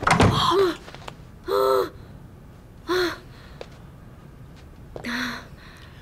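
A startled gasp with a brief scuffle at the start, then three short wordless vocal sounds: two quick pitched exclamations and a breathy sigh near the end.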